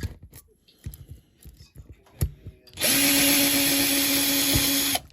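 Small power drill runs steadily for about two seconds and stops, drilling out a rivet on a diecast model car. Light clicks and knocks of handling come before it.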